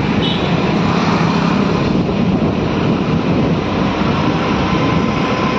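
Steady rush of wind on the microphone mixed with engine and road noise from a vehicle moving along a road, with a faint low engine hum in the first couple of seconds.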